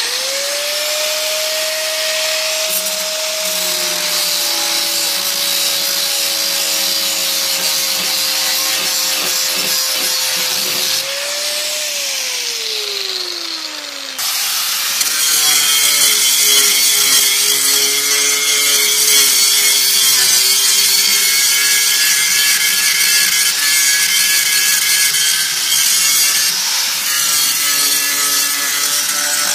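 Angle grinder running on steel, its motor note sagging slightly under load, then winding down about 12 seconds in. From about 14 seconds it grinds again, louder and harsher, against the edge of a rusted-through hole in a steel mower deck.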